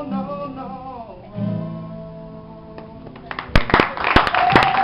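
A final held sung note and a closing acoustic guitar chord ringing out, then audience applause and cheering breaking out about three and a half seconds in.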